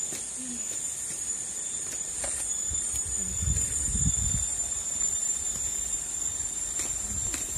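Steady high-pitched buzz of an insect chorus. A low rumble on the microphone, from about three to four and a half seconds in, is the loudest thing heard.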